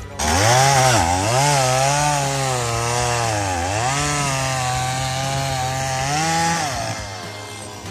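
Chainsaw running at high revs while cutting firewood. Its engine note sags several times as the chain bites into the wood and picks up again, then dies away near the end.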